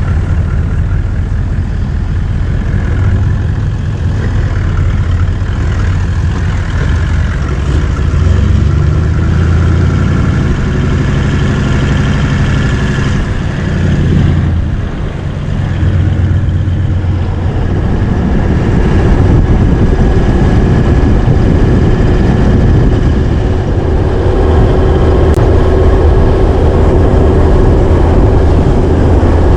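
Four-wheel-drive vehicle driving, with a steady, loud low rumble of engine and tyres that eases briefly about halfway through.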